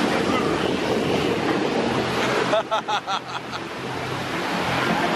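Surf breaking on a sandy beach: a steady rush of waves. Brief voices come in about halfway through.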